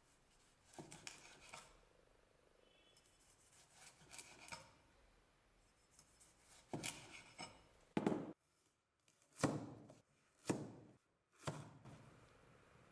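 Restored butcher cleaver slicing through a tomato and then a kiwi and meeting the wooden cutting board, in a series of separate cuts: a few soft ones at first, then about five sharper, louder strokes in the second half.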